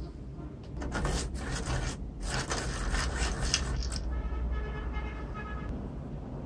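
Vintage Boston hand-crank pencil sharpener grinding a wooden pencil as the crank is turned: a rasping scrape for about three seconds with a brief break partway, then a faint thin whine.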